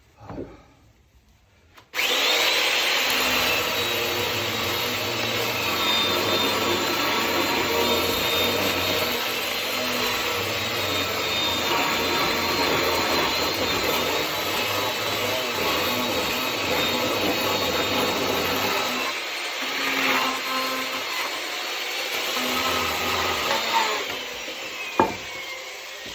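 Chainsaw cutting through firewood logs, starting suddenly a couple of seconds in and running steadily for about twenty seconds before easing off. A single sharp knock follows near the end.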